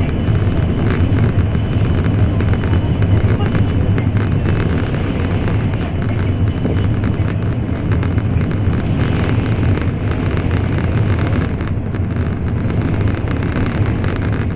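Steady running noise of an N700 series Shinkansen at speed, heard inside the passenger cabin: a loud, even low rumble with a rushing hiss over it and no breaks.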